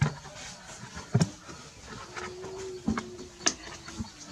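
A few short, sharp knocks and taps on a plastic bucket as it is handled and climbed on, spaced a second or so apart, with a faint steady hum for about a second in the middle.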